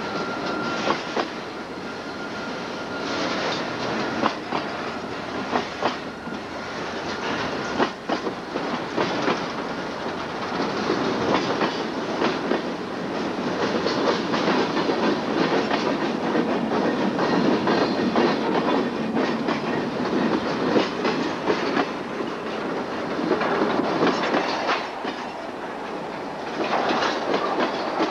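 Freight train rolling past close by, its cars' wheels clicking and knocking over the rail joints with a steady rumble and rattle.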